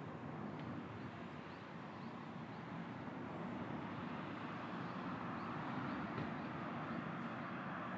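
Steady rain falling, an even hiss that swells slightly, with faint short high chirps scattered through it.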